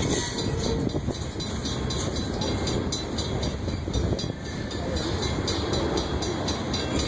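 Loaded freight train of grain cars rolling past: a steady rumble of steel wheels on the rails, with a run of light repeated clicks.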